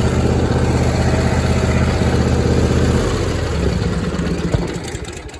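John Deere D160 lawn tractor's twin-cylinder engine running steadily, then dropping in pitch and dying away near the end as it is shut off.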